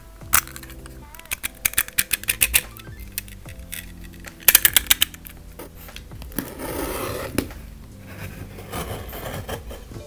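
Hands opening a mail-order parcel: quick runs of clicks and crackles from the packaging, loudest about four and a half seconds in, then a longer rustle about six seconds in. Soft background music runs underneath.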